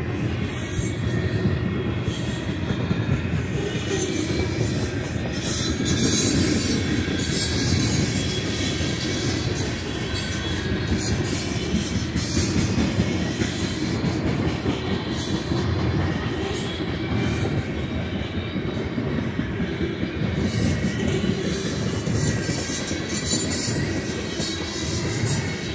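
Loaded covered hopper cars of a long freight train rolling past close by: a steady rumble of steel wheels on rail, with a thin squeal from the wheels at times.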